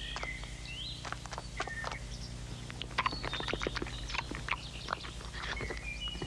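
Small birds chirping and twittering in short repeated calls, over a steady low hum and many short clicks and crackles.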